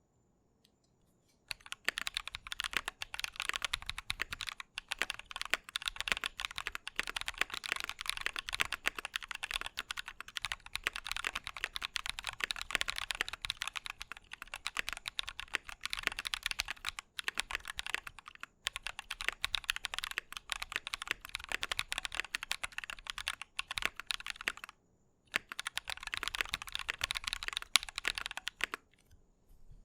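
Fast typing on a mechanical keyboard with Drop Holy Panda v2 tactile switches in an aluminium plate: a dense run of key clacks that begins about a second and a half in, breaks off briefly a few times, and stops just before the end.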